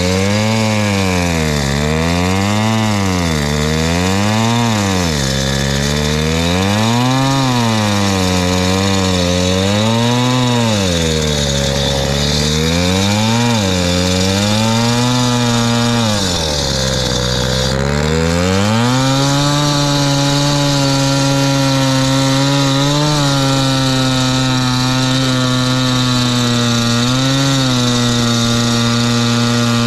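Gas-powered cut-off saw cutting asphalt. Its engine speed rises and falls repeatedly, then holds steady at high speed for the last third.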